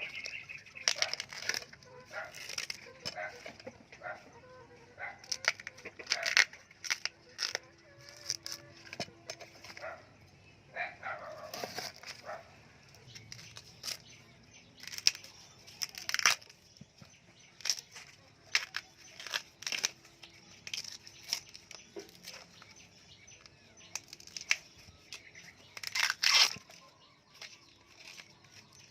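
Leaves and stems rustling, with irregular sharp snaps and cracks, as plants are cut and picked by hand.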